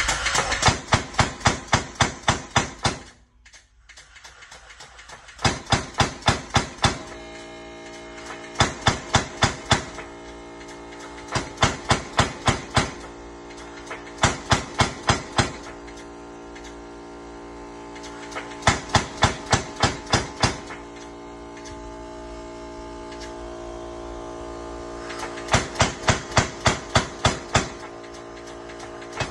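Homemade pneumatic power hammer with a steel-tube ram striking the lower die in rapid bursts of metal-on-metal blows, about four a second. The bursts stop and restart every few seconds, seven times in all, as the automatic air circuit cycles the ram. A steady hum runs underneath.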